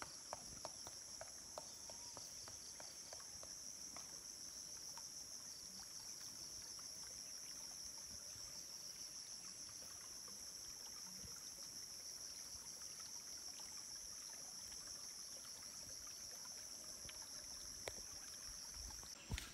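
Steady, high-pitched chorus of insects trilling. A few light ticks in the first two seconds and a sharp click near the end.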